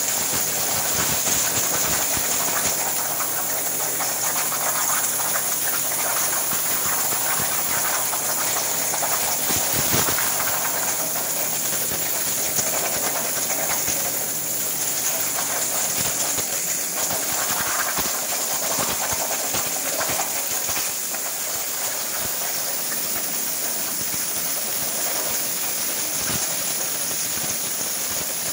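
CNC plasma torch cutting steel plate on a water table: a steady hiss of the plasma arc and its compressed air.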